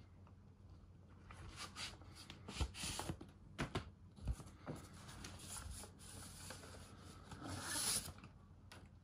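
Handling of a vinyl record and its paper sleeve: rubbing and sliding paper noise with a few soft knocks in the middle, building to a longer scraping slide as the disc comes out of the sleeve just before the end.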